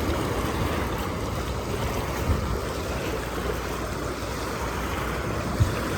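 Steady rush of moving water, with wind buffeting the microphone.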